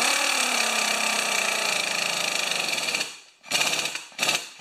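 Cordless impact tool hammering a lawn mower's 5/8-inch blade bolt tight. It runs continuously for about three seconds as the bolt seats, then fires three short bursts.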